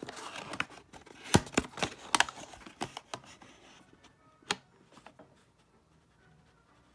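A trading-card box being opened by hand: a quick run of sharp clicks and rustling from cardboard and plastic packaging, then one more click about four and a half seconds in, after which it goes quiet.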